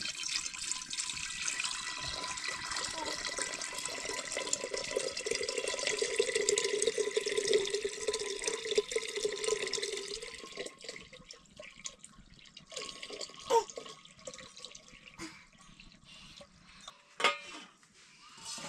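Water running or pouring steadily, stopping about ten seconds in, followed by a few scattered light knocks.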